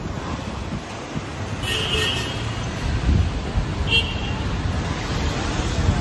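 Vehicle horn tooting twice, the first a little longer, over the steady rumble of passing road traffic.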